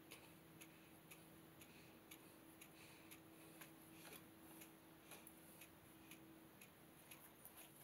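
Near silence: quiet workshop room tone with faint, evenly spaced ticking about twice a second and a faint steady hum.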